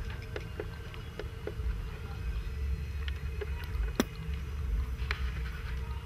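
Outdoor field ambience: a steady low rumble with scattered soft clicks and one sharp click about four seconds in.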